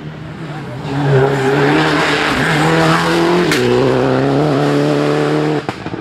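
Rally car engine running hard at high revs, its pitch stepping down twice, with a sharp bang about three and a half seconds in. The sound breaks off near the end.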